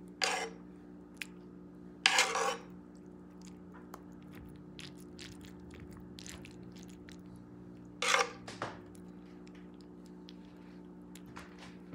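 Metal spoon scraping in a disposable aluminium foil pan as pan juices are scooped and spooned over turkey stuffing: three short scrapes, near the start, about two seconds in and about eight seconds in, with small clicks between. A low steady hum runs underneath.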